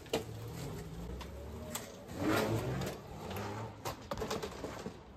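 Converted 1971 Vespa Primavera's 72-volt electric hub motor whirring, with tyre noise on concrete, as the scooter pulls away down a driveway; the sound swells louder about two seconds in.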